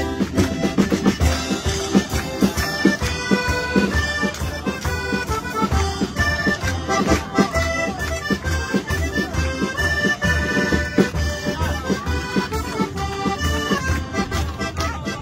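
Live folk music: a piano accordion playing a lively traditional tune over a steady, even beat from hand percussion.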